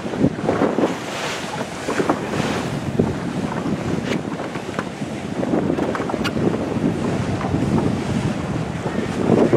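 Wind buffeting the microphone over water rushing and splashing against a sailboat's hull, a steady uneven rumble with a few brief slaps.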